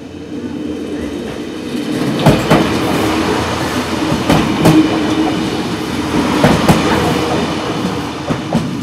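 An HLB Alstom Coradia LINT diesel railcar passing close by at speed: a steady running hum that swells as it draws level, with paired clicks as its bogies cross rail joints, about every two seconds.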